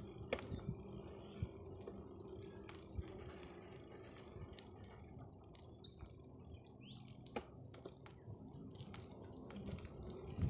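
Bicycle rolling along a concrete path: a steady low rumble from the tyres, with small clicks and rattles from the bike. A few faint bird chirps come in the second half.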